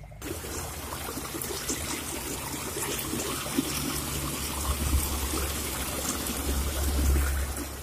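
Water running and splashing over rocks in a small channel, close up, with a low rumble that swells about midway and again near the end. It is water escaping from the damaged water main that feeds the hillside.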